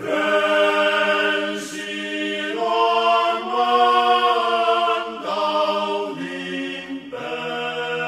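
Background music: a choir holding long sustained chords without words, the chord changing every second or two.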